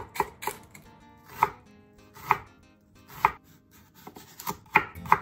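Chef's knife chopping celery and then carrot on a wooden cutting board: separate knocks about a second apart, quickening to several in quick succession near the end.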